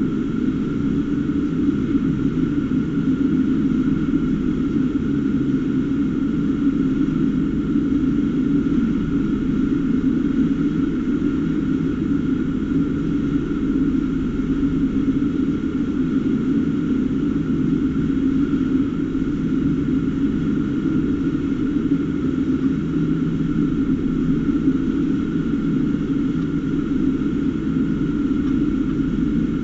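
A steady low drone that does not change, with a faint steady higher tone above it.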